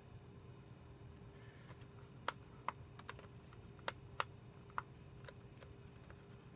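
Scattered small, sharp clicks and taps of hands and tools working on the Mac Mini's internal connectors and parts, about eight irregular clicks starting about two seconds in.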